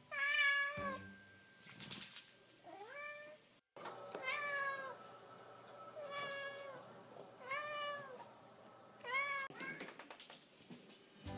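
Siamese cat meowing loudly and insistently, about six drawn-out meows a second or two apart, some rising in pitch: a hungry cat demanding its soft food. A short rustle about two seconds in.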